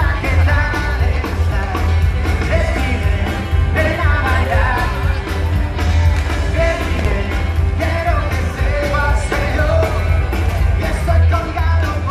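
Loud amplified live band music with a singer over a strong bass.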